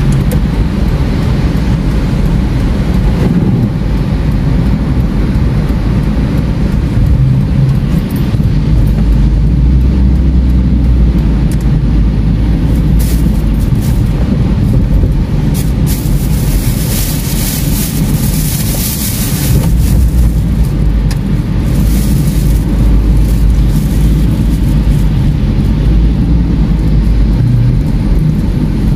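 Car driving on a wet road, heard from inside the cabin: a steady low rumble of engine and road noise, with a hiss of tyre spray off the wet road swelling for a few seconds past the middle.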